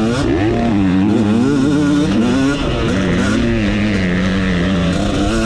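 Motocross bike engine heard from on board, its revs climbing and dropping over and over as the rider works the throttle and gears on the track, with a brief let-off about halfway through.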